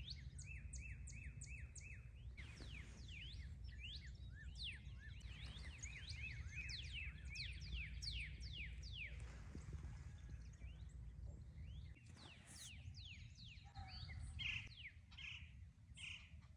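Several songbirds singing, a dense chorus of quick downward-sweeping chirps and repeated notes, over a steady low rumble.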